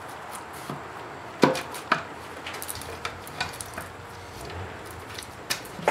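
Hollow plastic knocks and clicks of a plastic air-intake resonator being pressed and worked down onto the throttle body and its rubber seal. Two sharper knocks come about one and a half and two seconds in, and another near the end.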